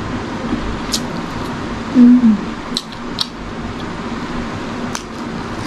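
Close-miked eating sounds: a few sharp wet mouth clicks and lip smacks while chewing a mouthful of rice and spicy side dishes. About two seconds in comes a brief hummed "mm", dipping slightly in pitch, over a steady low hum and hiss.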